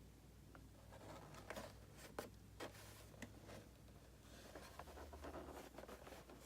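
Faint scattered taps and light rustling from cardboard Funko Pop boxes being handled.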